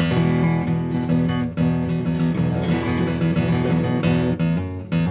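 Acoustic guitar strummed in a steady rhythm of chords, with no singing.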